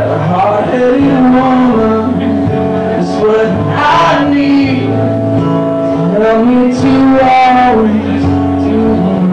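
Live acoustic song: a man singing over an acoustic guitar.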